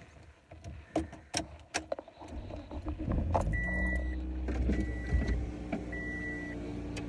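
A few clicks and rattles, then a car's engine starts about three seconds in and idles with a steady low hum, while a dashboard warning chime beeps a single high tone about once a second, four times.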